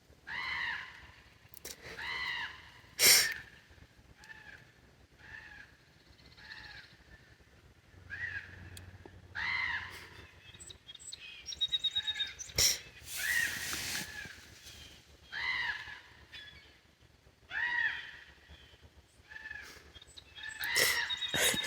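Several crows cawing over and over, harsh calls coming every second or two. A few sharp knocks and a short burst of rustling are mixed in around the middle.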